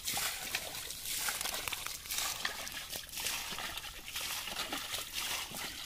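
Wet mud and shallow muddy water sloshing and trickling as hands dig in the mud and a metal bowl scoops it out, with small irregular squelches and splashes.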